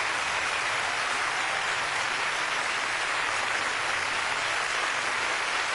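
A steady, even hiss that does not change, rain-like in character.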